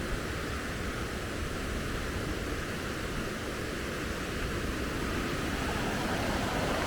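Fast-flowing river water rushing steadily and noisily, a constant even roar with no breaks.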